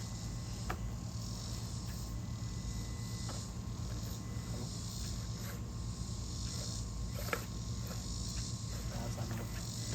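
Traxxas TRX-4 Mini RC crawler's small electric motor and gears running steadily as it climbs, with a few sharp clicks, the loudest about seven seconds in.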